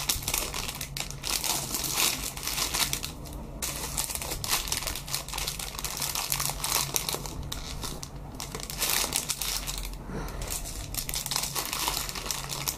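Clear plastic bags around squishy toys crinkling as fingers handle and squeeze them, an irregular run of crackles.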